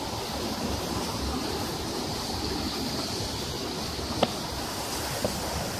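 Steady rush of a shallow rocky stream running over rapids, with a couple of sharp clicks in the second half, the loudest about four seconds in.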